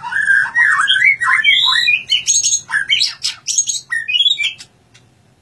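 White-rumped shama (murai batu) singing: a fast, varied run of clear whistled phrases that turns to harsher rasping notes, then stops abruptly near the end.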